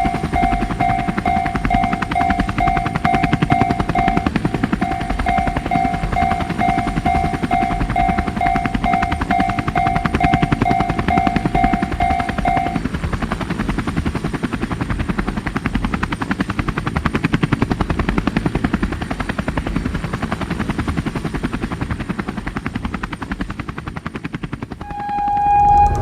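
Railroad crossing alarm ringing a two-tone ding about twice a second until about halfway through, over the steady chop of a helicopter's rotor. Near the end a held horn-like note sounds, then a loud burst.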